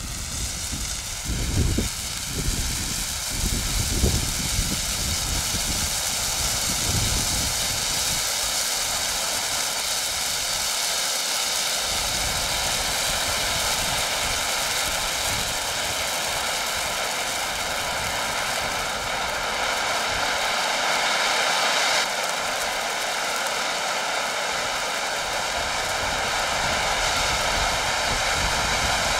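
An expired, roughly 30-year-old red pyrotechnic distress hand flare burning with a steady hiss, still working properly despite its age.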